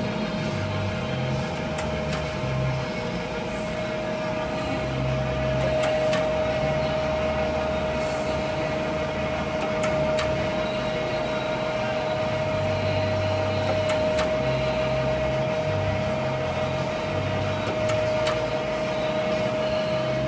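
Jones & Shipman 1300 universal cylindrical grinder running with its table traversing on automatic feed: a steady whine over a shifting low hum, with a short click about every four seconds.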